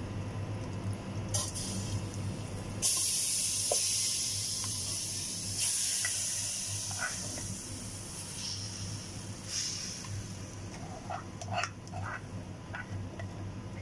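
Yogurt-marinated chicken sizzling as it is scraped into a hot pot. A loud hiss starts about three seconds in and slowly dies away, swelling again as more chicken goes in, and there are a few light scrapes of a plastic spatula near the end.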